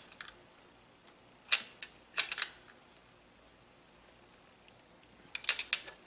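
Sharp metallic clicks of water pump pliers working a bolt on a throttle cable mounting bracket as it is tightened: a couple of clicks about one and a half seconds in, a short cluster about two seconds in, and a quick run of clicks near the end.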